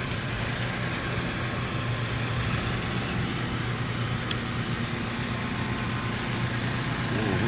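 Vehicle engine idling steadily: a low, even hum with no change in speed.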